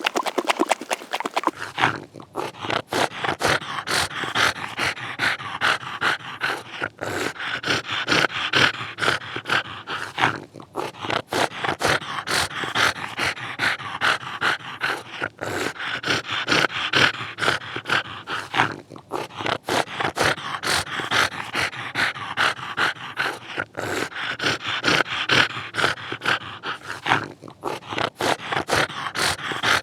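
English bulldog breathing and snoring with its loose jowls flapping: a rapid, wet-sounding flutter through each long breath, with short pauses about every four seconds.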